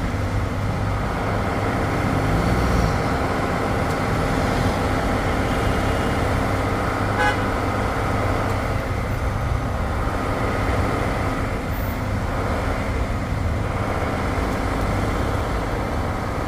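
Steady city street traffic noise with a low engine hum, and one short horn beep about seven seconds in.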